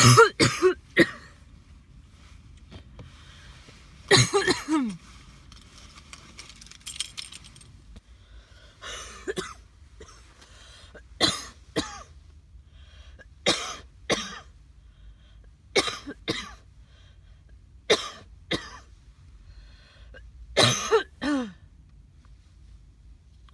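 A woman's chesty cough: a quick cluster of coughs at the start, then coughs mostly in pairs about every two seconds, with a longer fit near the end.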